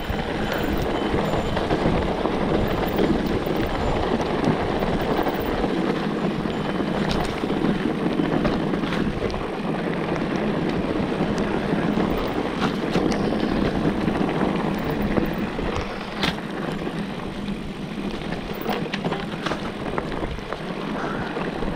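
Mountain bike riding down a wet dirt trail: steady rolling and rushing noise of the tyres and wind on the microphone, with a few sharp clicks and knocks from the bike along the way.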